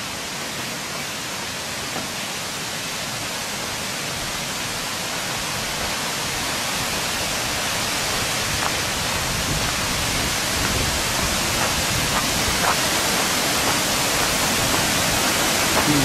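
Steady rushing of a waterfall, growing gradually louder as it is approached.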